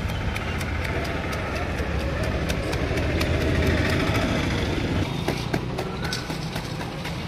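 An engine running steadily with a low hum, with scattered light clicks and taps over it.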